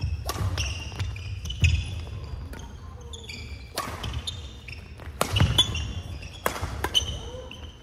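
Badminton play in a large sports hall: sharp hits at irregular intervals of about a second, and short high squeaks of court shoes on the floor, with the hall echoing.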